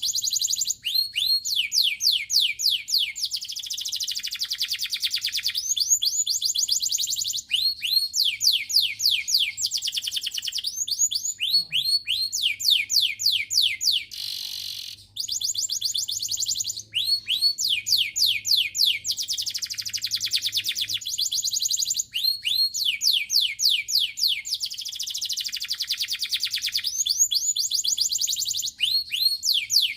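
Domestic canary singing continuously: fast trills of rapidly repeated high notes that sweep downward, phrase after phrase with brief breaks between.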